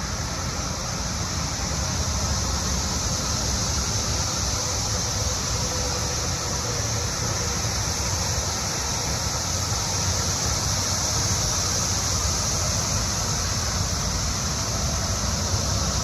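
Dense chorus of Brood X periodical (17-year) cicadas, a steady high-pitched drone, over the low rumble of highway traffic.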